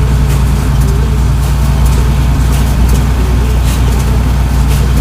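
John Deere 4230 tractor's diesel engine running steadily under load, a constant low drone with a few faint clicks over it.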